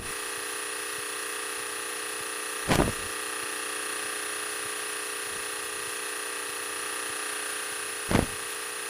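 Steady drone of a light airplane's engine in cruise, heard through the cockpit headset intercom as an even hum with a steady whine in it. Two brief bumps come about 3 and 8 seconds in.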